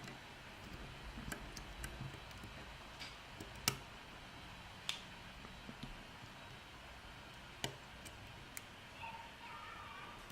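Faint, irregular clicks of lock picks and a tension wrench working in a small Corbin padlock's keyway, the sharpest a little under four seconds in.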